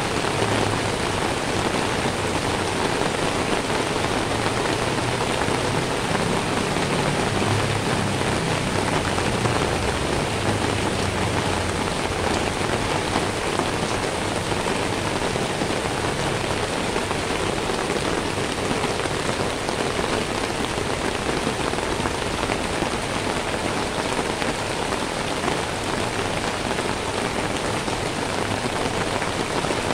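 Rain falling steadily, an even hiss of many drops that holds at the same level throughout.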